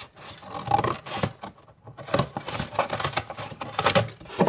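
Scissors cutting through thin cereal-box cardboard: a string of irregular snips and scraping rustles.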